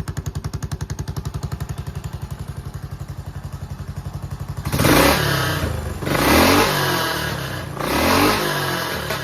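Yamaha SR400 single-cylinder four-stroke engine, run as a bare engine assembly, idling with an even rapid thudding beat, then blipped three times about a second and a half apart, each rev rising and falling back. The seller offers it as a running engine with no abnormal noise.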